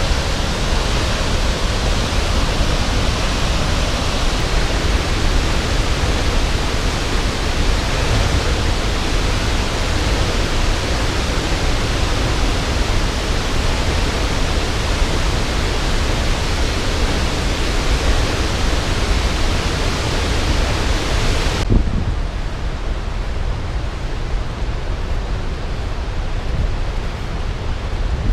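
Waterfall: a steady rush of falling water. About 22 s in the sound turns abruptly duller, with much less hiss.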